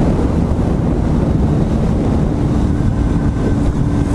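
Honda 919's inline-four engine running at a steady pace on the road, largely buried under heavy wind buffeting on the microphone; a steady engine note comes through from about halfway in.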